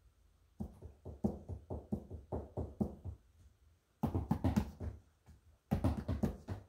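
A run of quick knocks on a hard surface, about four or five a second for a couple of seconds, then two denser bursts of knocking, one in the middle and one near the end.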